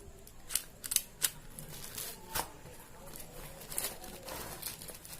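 Plastic packaging being handled and unwrapped: several sharp crackles and clicks in the first two and a half seconds, then faint rustling.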